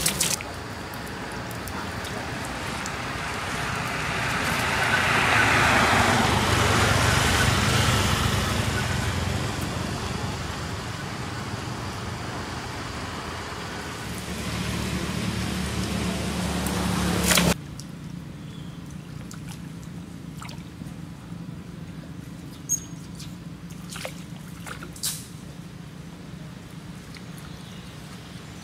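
A road vehicle passes, its noise swelling for a few seconds and fading away. The sound cuts off suddenly, leaving a quieter background with a few faint clicks.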